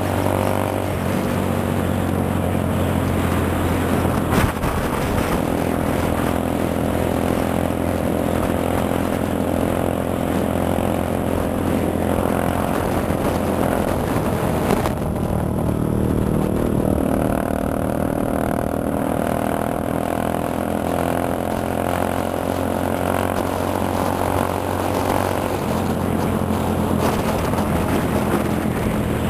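Motorcycle engine running steadily at cruising speed, recorded from the rider's own bike, with a brief knock about four seconds in.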